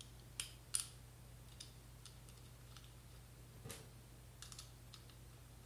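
A few light, scattered clicks and taps of a small metal buckle and its screw being handled against an aluminium slingshot fork while a flat rubber band is threaded through, the sharpest about a second in, over a faint steady low hum.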